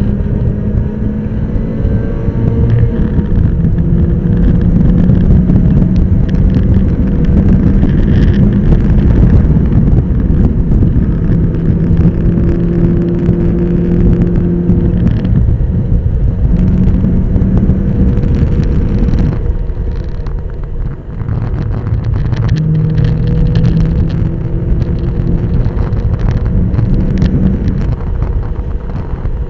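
Mazda MX-5 race car's four-cylinder engine heard from inside the open cabin, running hard at track speed with wind and road noise. The engine note holds steady, fades briefly about two-thirds of the way through as the throttle is lifted, then comes back.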